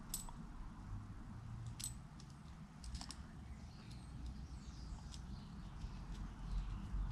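Scattered light clicks and ticks of a metal connector plug and its cable grip piece being handled and fitted together by hand, with a few clicks close together a little before halfway.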